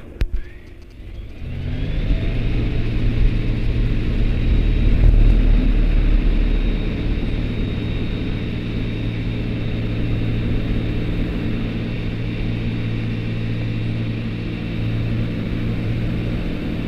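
Ikarus C42 microlight's engine and propeller coming up to full take-off power, rising over the first couple of seconds and then running steady through the take-off roll.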